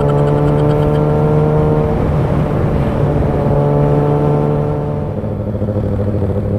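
2019 Kawasaki ZX-6R's inline-four engine running at steady cruising revs. The note goes rough for a moment about two seconds in, then near the end drops to a lower pitch as the revs fall.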